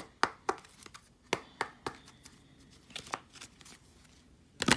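A tarot deck being handled and shuffled: a series of short, sharp card snaps and taps, then a loud, dense riffle of cards near the end.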